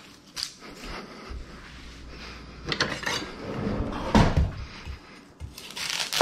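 Kitchen handling sounds: a utensil drawer being opened and knives and metal tools clinking inside it, with scattered knocks and clatter.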